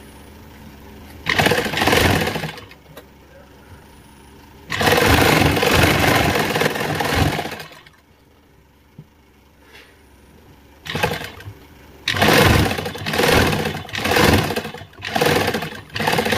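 Sewing machine stitching a seam through cotton fabric in several stop-start runs. A short run comes about a second in and a longer one of about three seconds follows. Near the end there is a quick series of short bursts.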